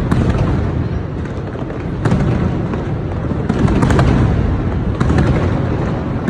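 Fireworks display: a continuous run of booms and crackling bursts, with sharp new bursts about two seconds in and again about three and a half seconds in.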